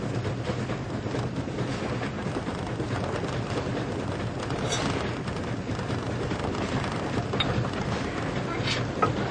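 A moving train's steady running rumble, with a few sharp metallic clanks.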